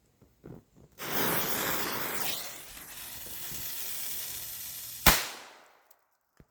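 A lit firecracker fuse hissing for about four seconds, then a single sharp firecracker bang that dies away over about a second.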